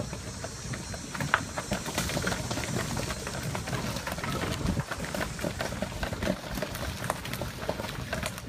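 Golf cart driving along a leaf-strewn cart path: a steady low rumble with many small clicks and rattles.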